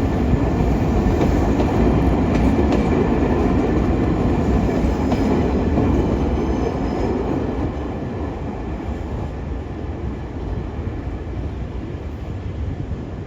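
A towed train of Tokyu 5000-series electric cars rolling past on the rails, the wheels clicking over rail joints. The sound fades from about halfway through as the train draws away.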